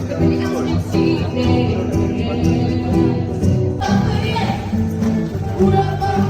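Music with singing; the music changes abruptly about four seconds in.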